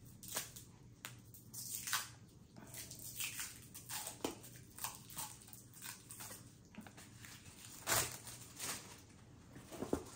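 Packaging rustling as a rubber-backed mat is unwrapped and handled, in irregular bursts, the loudest about eight seconds in.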